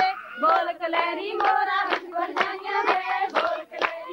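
Women singing a Punjabi boli to a steady beat of hand claps, about two claps a second, in the manner of giddha.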